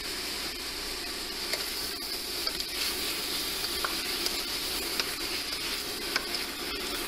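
Diced chicken breast sizzling in a stainless steel pan as it is stirred with a utensil, with a few light clicks of the utensil against the pan.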